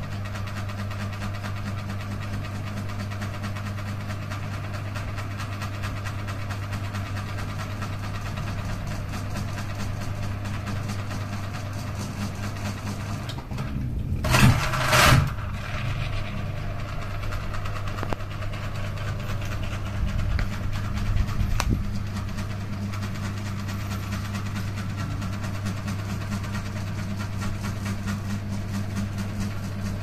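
Ceiling fan running at speed: a steady electric motor hum with the whoosh of air from the spinning blades. About halfway through come two brief, loud bursts of noise.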